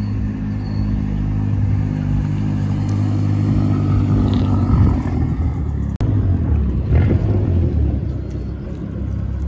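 A lowered hatchback's engine running at low revs as the car rolls slowly past. After a cut about six seconds in, a Ford Shelby GT500's V8 running as it rolls forward, with a stronger, deeper engine note.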